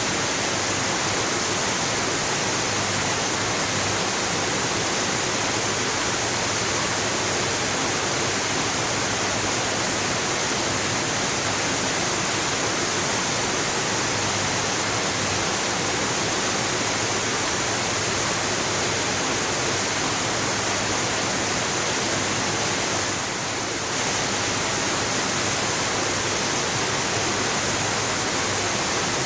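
Waterfall: a steady, dense rush of falling water, with a brief slight dip in loudness about three-quarters of the way through.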